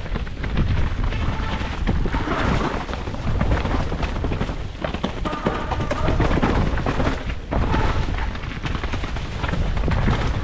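Wind buffeting a GoPro action camera's microphone during a fast mountain bike descent, a loud steady rumble, with the frequent clatter and knocks of the bike running over dirt, roots and rocks.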